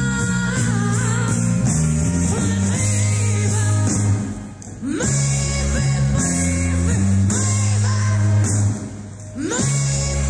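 A woman singing a rock song into a microphone with a live band, electric guitar and bass underneath; the music drops away briefly twice, about four and nine seconds in.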